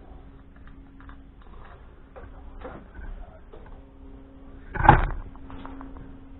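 Light clicks and small knocks of hands and tools working on an engine, with one much louder sharp knock about five seconds in, over a faint steady hum.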